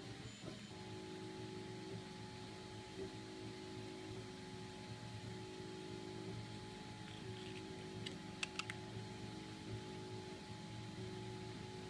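A faint steady hum of several held tones, with a few light plastic clicks close together about eight seconds in as the 3D-printed PETG foldable tetrahedron is handled and folded.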